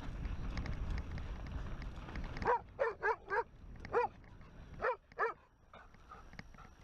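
A dog barking, about seven short barks in quick succession starting about two and a half seconds in, after a low rumble of wind and movement.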